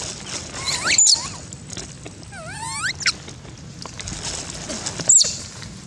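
Long-tailed macaques squealing: a rising high call about a second in, a run of wavering squeals around two and a half seconds, and one short sharp squeak near the end, over light ticking and rustling.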